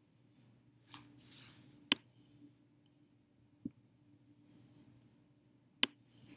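Computer mouse clicking: two sharp clicks about four seconds apart with a fainter click between them and a few soft scuffs, over a faint steady low hum.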